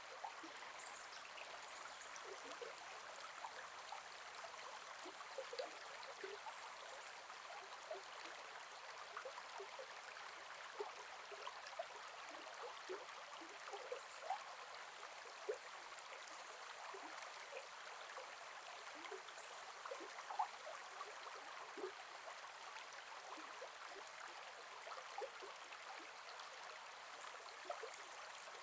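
Gentle forest river flowing in a steady, soft rush, with frequent small gurgles and plinks of water scattered throughout.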